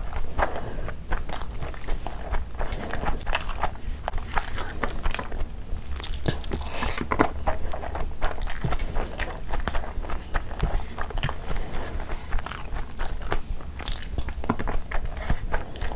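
Close-miked mouth sounds of a person eating a mouthful of Schezwan fried rice with chicken curry gravy by hand: wet chewing with frequent short clicks.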